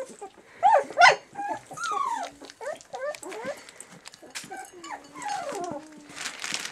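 Three-week-old Labrador-mix puppies whimpering and squeaking in many short cries that rise and fall in pitch, loudest about a second in. Light clicks and rattles of kibble in a steel food bowl sound among the cries.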